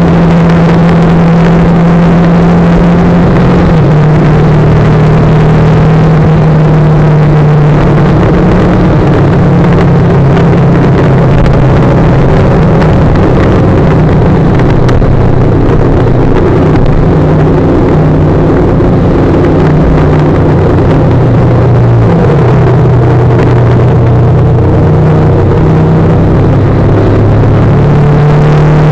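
Motorcycle engine running at cruising speed, its note dropping a little about three seconds in and climbing back near the end, under a constant rush of wind and road noise.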